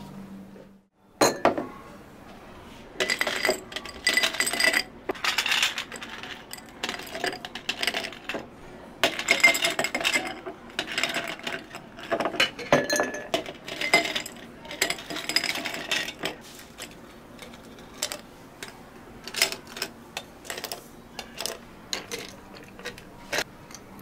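Repeated clinking and clattering of drink-making gear, hard objects knocking against glass or metal. It comes in dense clusters of a second or two, some with a short ringing tone, starting about a second in.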